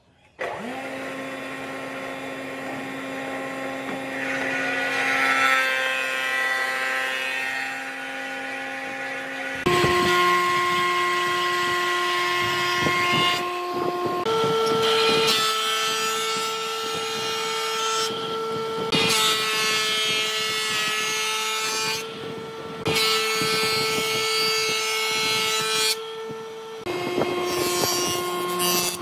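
Electric woodworking power tools running and cutting wood, with a steady motor whine over the noise of the cut. The pitch and loudness change abruptly about every four to ten seconds as one tool or cut gives way to another.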